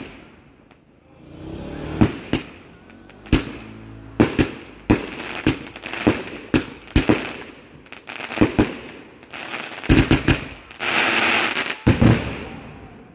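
Dream Weaver 30-shot firework cake firing: after a short lull, a rapid, irregular run of loud bangs from shells launching and bursting. A longer stretch of dense crackle comes near the end.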